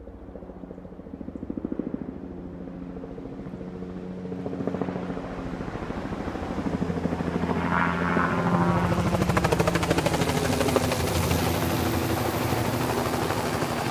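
Helicopter flying low overhead. Its rotor beat grows steadily louder as it approaches and is loudest in the second half.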